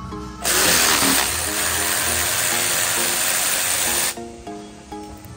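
Cordless electric ratchet running steadily for about three and a half seconds, then stopping abruptly, as it loosens the bolt on the A/C compressor's refrigerant line with a deep 10 mm socket. Background music plays under it.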